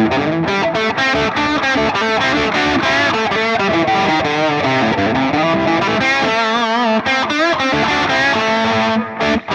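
Harley Benton SC-DLX electric guitar on its neck pickup, played with overdrive through a Hotone Ampero One modelling a Mesa Boogie Mark IIC+: a lead line of quick single notes, with held notes shaken by wide vibrato about six to seven seconds in and a brief break near the end.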